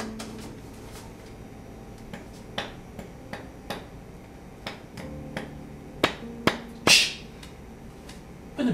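Irregular sharp knocks and taps of a hand tool being worked against a textured ceiling, a dozen or so strikes with gaps between them. The loudest come near the end, the last with a short scrape.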